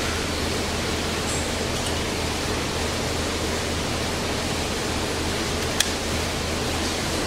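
Steady hum and hiss of the DoAll C4100NC horizontal band saw's motor and hydraulics running, with one sharp click a little before the end.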